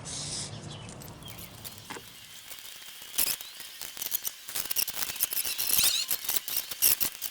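Irregular clicks, scrapes and small high squeaks of close-up hand work, busiest a few seconds in.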